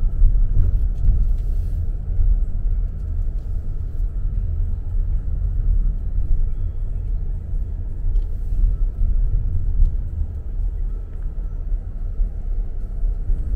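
Steady low road and engine rumble of a car driving at low speed, heard from inside the cabin.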